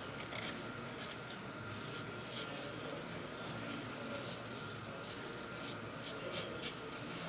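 Disappearing fabric marker scratching along the edge of a paper pattern as it traces the outline onto cotton fabric, in a string of short, faint strokes.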